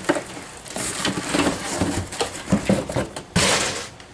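Packing material being handled: plastic air-filled packing bags crinkling and cardboard rustling, with scattered knocks as a hard plastic tool case is lifted out of the box, and a louder rush of rustling about three and a half seconds in.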